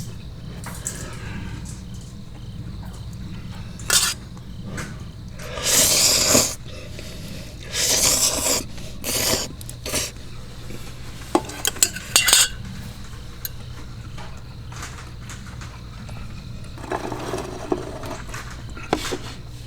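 Dishes and cutlery clattering now and then, with short bursts of rustling noise and a few sharp clicks over a steady low hum.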